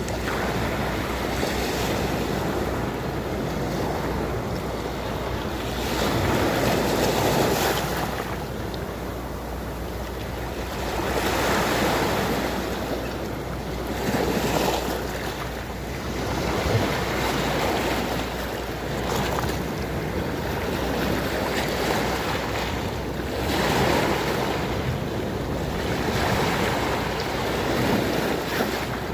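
Sea waves breaking on the shore: a steady rush of surf that swells and eases every few seconds.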